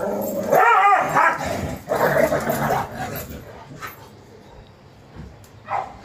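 A dog vocalizing. A high, wavering cry comes about half a second in, then a second, rougher outburst follows around two seconds in, and the sound then dies down.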